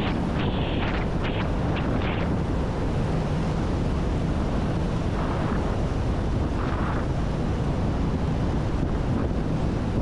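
Steady wind rush buffeting the microphone of a fast-moving e-bike, with a few short brighter hisses in the first two seconds.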